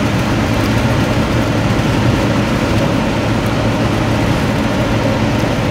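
Steady engine and road noise heard from inside a vehicle's cab while driving at highway speed: an even rumble with a low, constant hum.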